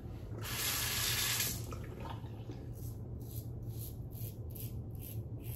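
A short rush of running water about half a second in, lasting about a second. Then a Carbon CX safety razor with a Nacet blade scrapes across lathered stubble in short strokes, about three a second, on an across-the-grain pass.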